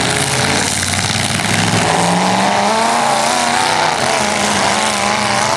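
Demolition derby cars' engines running hard together, loud and steady, with engine pitches wavering up and down from about two seconds in as they rev.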